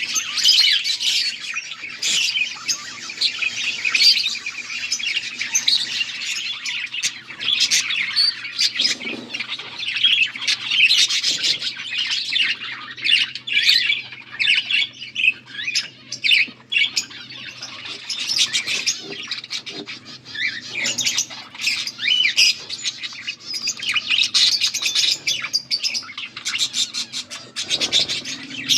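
Budgerigars chirping and warbling in a continuous, busy chatter, with sharper squawks mixed in. A faint steady low hum runs underneath.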